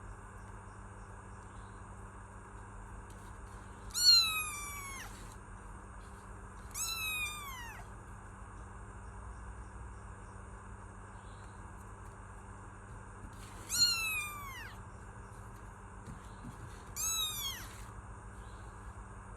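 A kitten meows four times, a few seconds apart. Each meow lasts about a second and falls in pitch, and the first and third are the loudest.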